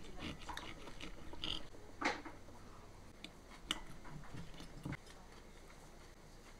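Steel knife and fork cutting food on a ceramic plate: light scraping with a few sharp clinks of metal on china, the loudest about two seconds in.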